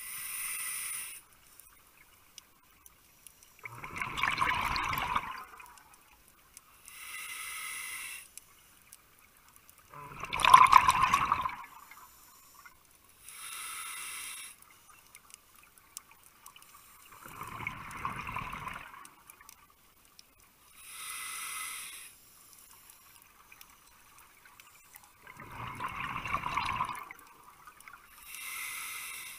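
Scuba regulator breathing underwater: a short hiss of air drawn through the regulator, then a louder rush of exhaled bubbles, repeated as four slow, even breaths.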